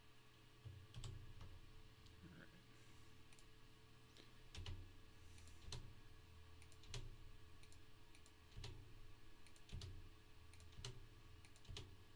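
Faint keystrokes on a computer keyboard, single clicks about a second apart, over a low steady hum.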